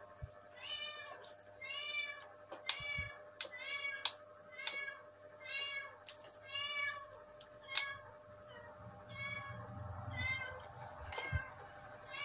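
A cat meowing over and over, a short rise-and-fall call about every three-quarters of a second, with scattered sharp clicks between.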